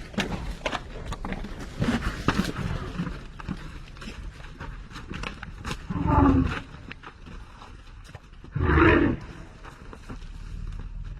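Elephant roaring twice: two short, loud roars about six and nine seconds in, over scattered knocks and rustling.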